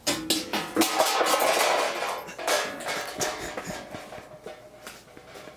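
A 200 µF electrolytic filter capacitor, reverse-polarized on 300 V DC inside an apple, breaking down. It bursts into a sudden crackling sizzle scattered with sharp pops, loudest in the first two seconds, then dies away over the next few.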